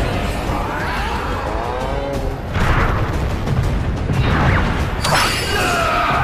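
Kaiju monster roaring in long cries that bend up and down in pitch, over loud background music, with a crash and burst of sparks about five seconds in.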